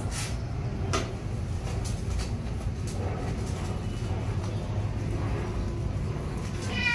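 A steady low rumble, with a couple of short clicks in the first second. Near the end a wet Maine Coon cat, being shampooed, starts a meow that falls in pitch.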